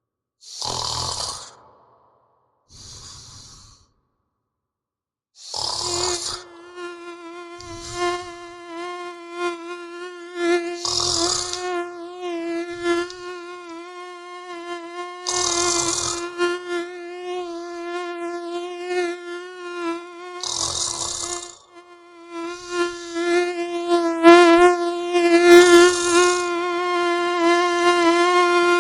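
A person snoring in irregular loud breaths every few seconds. About five seconds in, a mosquito's high buzzing whine joins and hangs on, wavering slightly and growing louder near the end.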